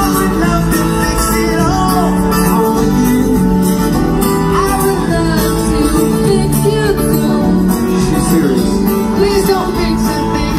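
Live rock band playing a song over a concert PA, heard from the audience: strummed acoustic guitar, electric guitar and drums with a steady cymbal beat, under sung vocals.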